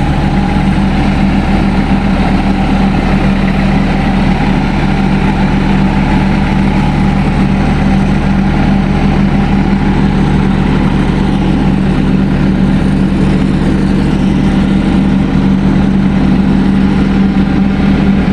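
Engine running steadily and close at an even speed, with a strong low hum that holds the same throughout.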